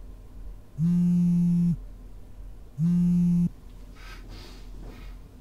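Mobile phone buzzing on vibrate with an incoming call: two low buzzes about a second long and a second apart, the second cut off sharply partway through as the call is stopped. Faint rustling follows near the end.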